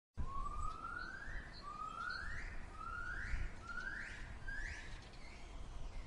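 Gibbon calling: five rising whoops, each climbing in pitch and shorter and quicker than the one before, the accelerating build-up of a gibbon's great call. A low rumble runs underneath.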